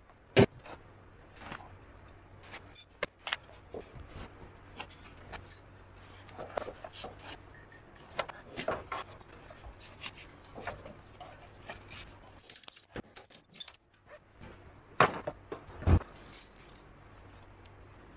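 Irregular clicks, knocks and metal clinking from handling a ratchet strap with steel hooks and a plastic Argo super track on its wheel. The sharpest knock comes about half a second in, and two more come late on.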